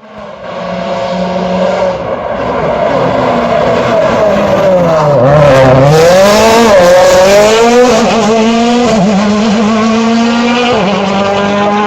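Rally car engine coming through a hairpin: the engine note drops as it slows into the bend, then it revs hard and accelerates away, climbing in pitch with sudden breaks at the gear changes.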